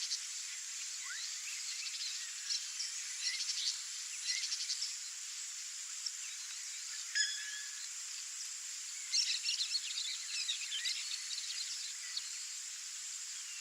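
Outdoor ambience: a steady high hiss with scattered short, high bird chirps and trills, busiest about nine to eleven seconds in, and one brief pitched call about seven seconds in.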